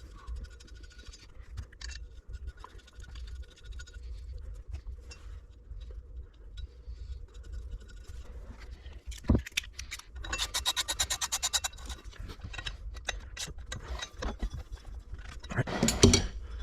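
Hand ratchet clicking rapidly for a second or two as the water pump bolts are run down snug, amid scraping tool handling. There is a single knock just before the ratcheting and a louder clunk near the end.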